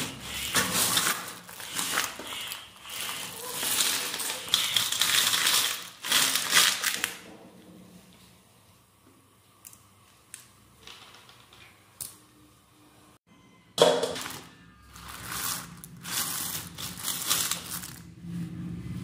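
A wet cloth bundle of steamed clams rustles as it is opened, and the clam shells clatter against each other and the steel bowl. After a quiet stretch with a few faint clicks, the shells clatter again in the last few seconds.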